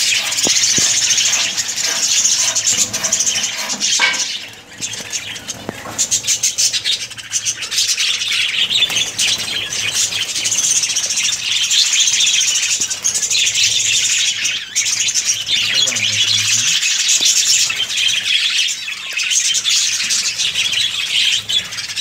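Budgerigars chattering continuously, a steady stream of high-pitched chirps and squawks, with short lulls about four and a half seconds in and again near fifteen seconds.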